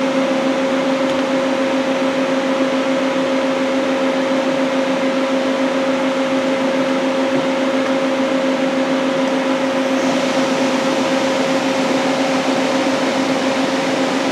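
Daewoo Puma 240B CNC lathe running with a steady hum and two held tones. About ten seconds in, the spindle and its 3-jaw chuck start turning at 1,000 rpm and add only a faint high whine: the spindle is very quiet at that speed.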